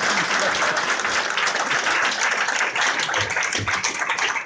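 Audience applauding steadily, a dense patter of many hands clapping that starts to thin toward the end.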